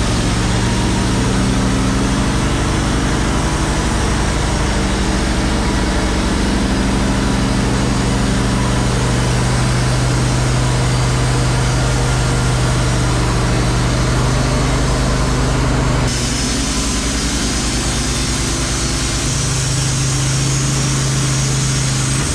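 Wood-Mizer LT15 Wide portable band sawmill running: its engine pulls steadily under load while the band blade saws lengthwise through an eastern white pine log, with a hiss of cutting over the engine note. The sound shifts about three-quarters of the way through.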